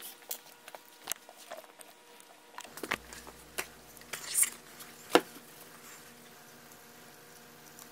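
Small handling noises of a leather knife sheath and tools on a workbench: scattered light taps, clicks and rustles, with one sharp click about five seconds in. A faint steady hum comes in about three seconds in.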